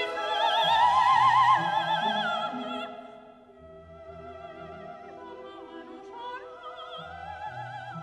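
Classical background music: an operatic voice singing with wide vibrato over orchestral accompaniment. It is loud at first, then falls to a softer passage about three seconds in.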